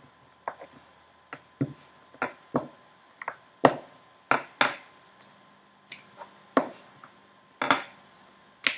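A small plastic rolling pin and hands rolling out and handling a piece of fondant on a work bench: a string of irregular, sharp taps and knocks, more than a dozen.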